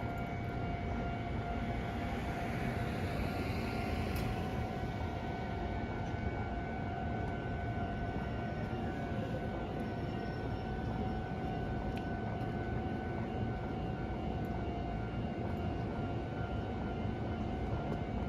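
Japanese railroad crossing warning signal sounding its steady alarm tones over a continuous low rumble. A hiss swells and fades about three to four seconds in.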